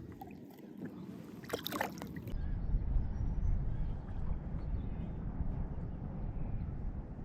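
Low rumbling noise of wind on the microphone with water sloshing around a small fishing boat, with a brief rustling clatter about two seconds in, after which the rumble grows louder.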